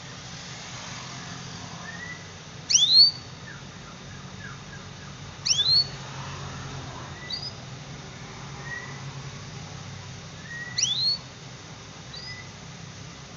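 Domestic canary calling: three loud, sharp rising calls a few seconds apart, with softer short chirps between them.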